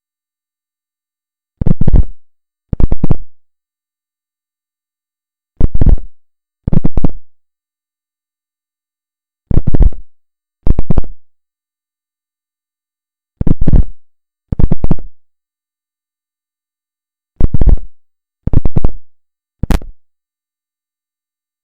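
Recorded signal from a refrigerator: pairs of short buzzing bursts, each rattling with rapid pulses, repeating about every four seconds, then one shorter burst near the end, with dead silence between. The pattern is taken for Morse code.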